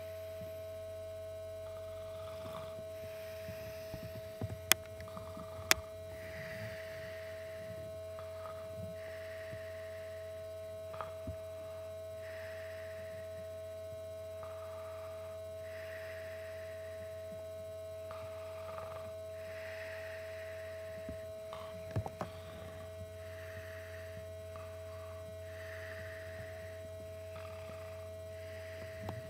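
A steady electrical hum is the loudest sound. Over it, a sleeping man snores softly, with slow, regular, hissy breaths every few seconds. Two sharp clicks come about five seconds in, and another near the 22-second mark.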